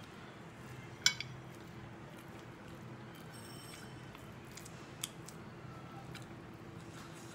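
A person eating rice by hand from a ceramic plate: faint chewing and hand-on-plate sounds, with a sharp click about a second in and a smaller one near five seconds, over a steady low hum.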